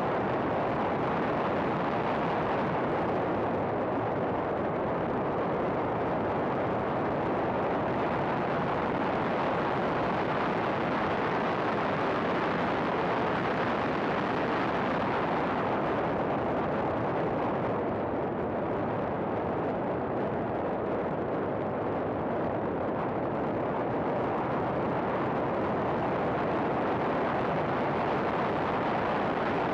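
Race car running at track speed: a steady rush of wind and engine noise with no clear engine note, its upper part easing slightly about two-thirds of the way through.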